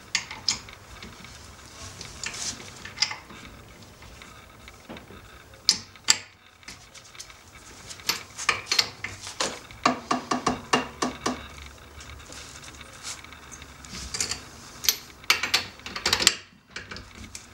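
A socket wrench clinks against metal as lug nuts are loosened on a wheel adapter bolted to a car's rear hub. There are scattered sharp clicks throughout, and a fast run of ratchet clicks about halfway through.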